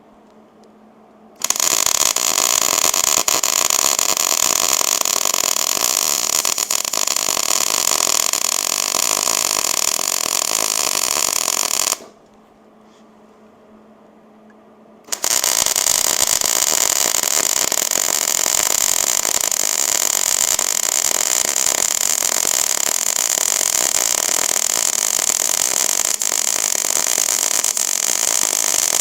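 Hobart Handler 130 MIG welder laying two long continuous beads, a steady loud arc crackle that starts and cuts off abruptly each time the trigger is pulled and released, with a short pause between the two.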